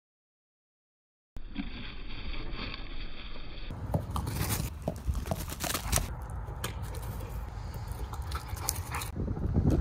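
Dead silence for about a second and a half, then outdoor noise: a low rumble with scattered light thumps and patter from a chocolate Labrador running through grass after a rubber ball, the rumble loudest near the end.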